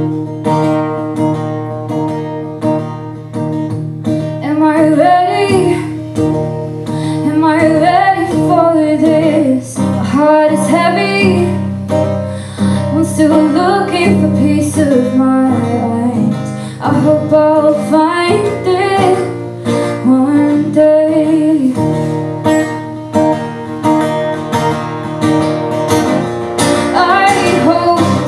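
Acoustic guitar strummed in barre chords, with a woman singing over it; the voice comes in about four seconds in after a short guitar intro.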